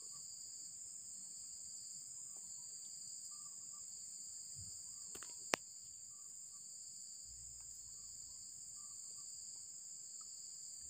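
Steady, high-pitched insect chorus in the vegetation around the water, holding unbroken throughout. A single sharp click sounds about five and a half seconds in.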